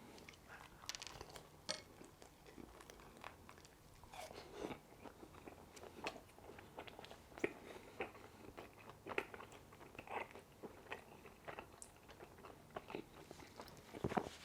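A person chewing a vinegar-dressed pan-fried pork dumpling, with faint, irregular soft crunches and wet mouth clicks.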